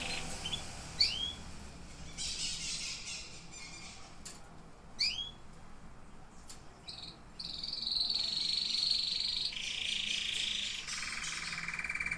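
Domestic canary singing: a few quick rising whistled notes, then long rapid rolling trills, each held at one pitch and stepping lower in pitch toward the end.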